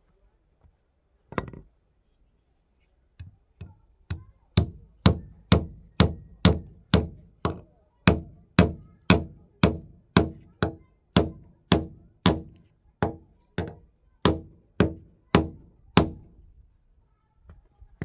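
Hammer blows on a wooden log post: a single blow about a second in, two light taps, then a steady run of about two dozen even blows, two a second, each with a short ring, stopping about two seconds before the end.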